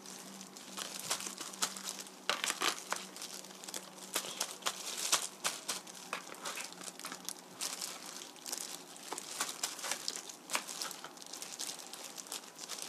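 Kitchen paper towel and disposable plastic gloves crinkling in quick, irregular crackles as raw chicken pieces are patted dry.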